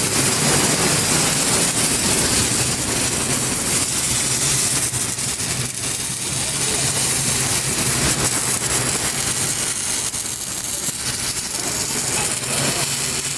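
Electric arc welding: a steady hissing crackle over a low, even electrical hum.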